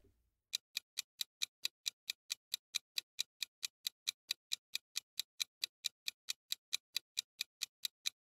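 Countdown-timer ticking sound effect: quick, evenly spaced clock ticks, about four to five a second, starting about half a second in.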